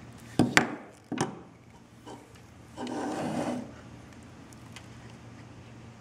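Hand crimp tool crimping an RJ45 plug onto Cat5e cable: two sharp clicks less than a second in and another about a second in, then a brief rubbing scrape about three seconds in.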